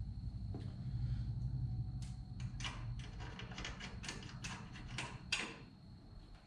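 Hand tools clicking and clinking on a grease fitting as it is threaded into the upper control arm: a run of irregular sharp metallic clicks, the sharpest near the end, over a low rumble.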